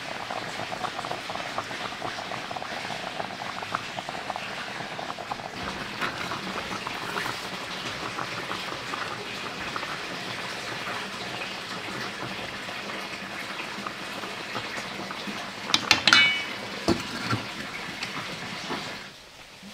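Fish simmering in a beer braise in a pot on a gas stove, a steady bubbling and crackling with occasional stirring scrapes. Near the end a metal pot lid clanks down onto the pot with a brief metallic ring.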